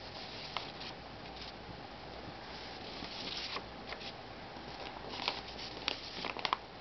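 Sheets of printer paper being flipped over by hand: soft rustles and flaps, bunched about halfway through and again near the end, over faint room tone.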